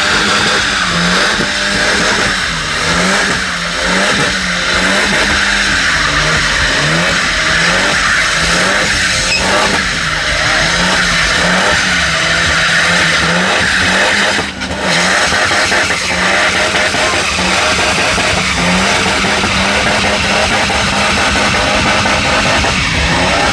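Car engine held at high revs during a burnout, the engine note dipping and climbing back about once a second as the throttle is worked, over a steady hiss of spinning tyres. There is a brief drop in level about two-thirds of the way through.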